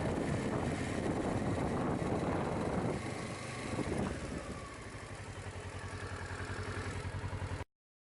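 Motorcycle engine running, settling over the last few seconds into an idle with an even pulse of about six beats a second, then cutting off abruptly.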